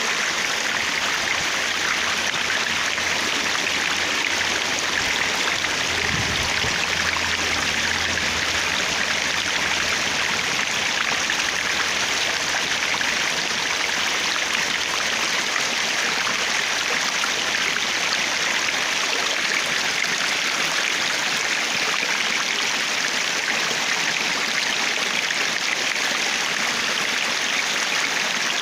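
Running water flowing steadily, an even, unbroken rush of water.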